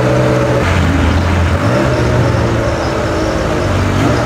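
Ferrari F355's 3.5-litre V8 running just after being started, steady apart from a couple of brief dips in pitch.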